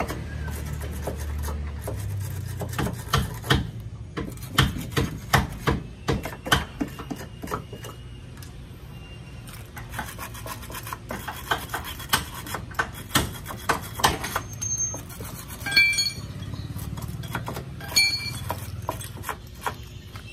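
Hand tools clinking, tapping and scraping on the metal of a Nissan Urvan's front door hinge as it is cleaned out after the old bushings have been removed. There is a quick, irregular run of sharp knocks and clicks, with two short ringing metallic clinks near the end.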